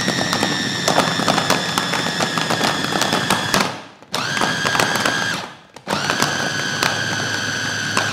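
Electric food chopper running in pulses as its push-button top is held down, whizzing ground mackerel paste with ice: a long run that cuts off about three and a half seconds in, then two shorter runs of about one and a half and two seconds. Each run is a steady motor whine that winds up and down as it starts and stops.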